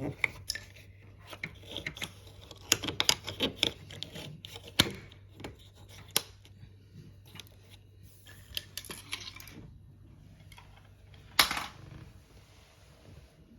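Irregular clicks, taps and rattles of small hard parts being handled, over a low steady hum, with one louder knock about eleven seconds in.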